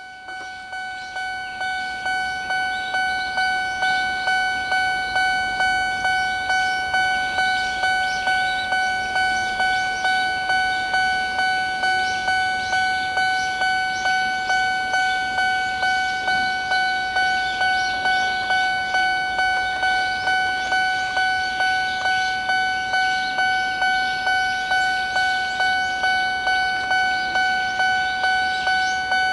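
Japanese railway level-crossing warning bell ringing its electronic 'kan-kan' alarm, an even train of ringing strikes that grows louder over the first couple of seconds. The bell is sounding because a train is approaching.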